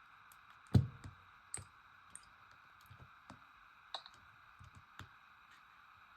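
Light clicks and taps at irregular intervals, with one louder knock a little under a second in, over a faint steady background hum: handling sounds of phones being picked up and tapped.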